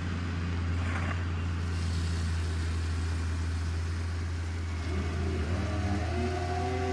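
New Holland T7.060 tractor's six-cylinder diesel engine running steadily.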